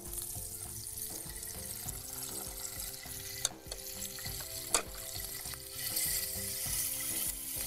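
Green chillies, ginger-garlic paste and mint chutney sizzling in hot oil and butter in a frying pan, a tempering being stirred with a wooden spatula. Two sharp clicks come a little past halfway.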